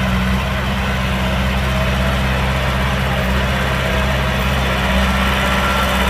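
Heavy diesel engine of earthmoving machinery running steadily at low revs, an even low drone.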